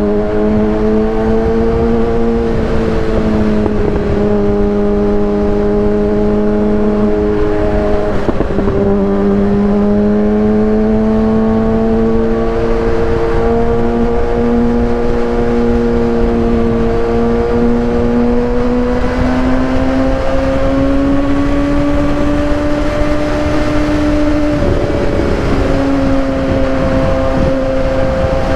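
Kawasaki ZX-6R 636's inline-four engine through a Racefit aftermarket exhaust, running steadily under way at fairly constant revs. The note dips briefly twice, then slowly climbs in pitch, with a small step up near the end, over a steady rushing noise.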